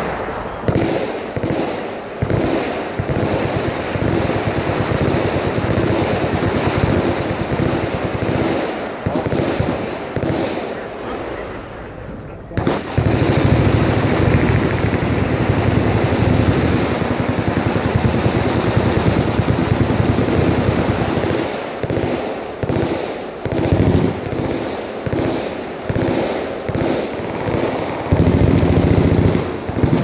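Many machine guns firing at once in continuous, overlapping fire. The fire thins about ten seconds in, comes back heavier and sustained a couple of seconds later, then breaks into separate bursts with short gaps before swelling again near the end.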